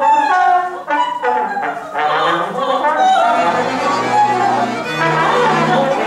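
Live contemporary chamber music: a trombone and a viola playing together with a singing voice, moving notes at first, then steadier, with low sustained notes in the second half.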